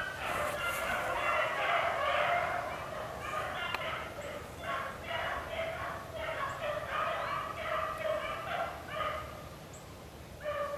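A pack of beagles baying in full cry on a rabbit's trail, many hound voices overlapping in quick, choppy calls that ease off briefly near the end. Hounds giving tongue like this means they are on the scent and running the rabbit.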